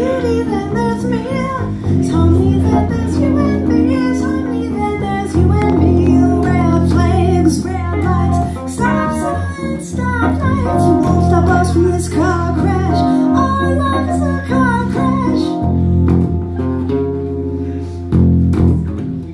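Live band music: an electric bass guitar and an electric keyboard playing a song together, the bass line steady underneath a wavering melody.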